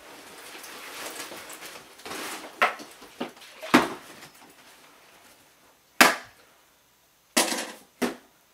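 Clothing and backpack rustling as it is pulled off, then a series of separate knocks and clacks as objects are set down on a wooden desk. The loudest knock comes about six seconds in, with a brief scrape and a last click near the end.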